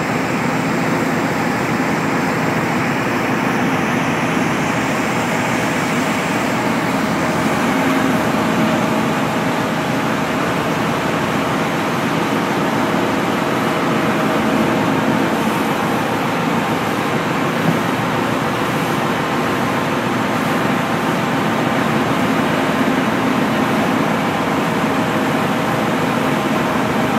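Steady drone and rush of a car ferry under way: the ship's engine hum under wind and the wake churning along the hull.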